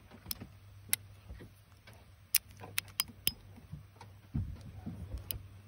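Herbert Schmidt EIG E15 .22 single-action revolver at half cock, its cylinder turned by hand and giving sharp metallic clicks, about seven of them at uneven spacing.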